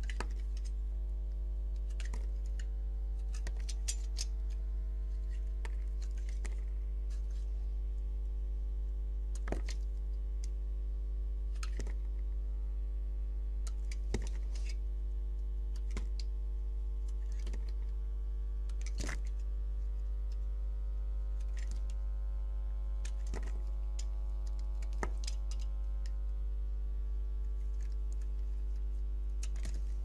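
Utility knife blade cutting into a bar of soap: irregular crisp clicks and scrapes as pieces come away, over a steady low hum.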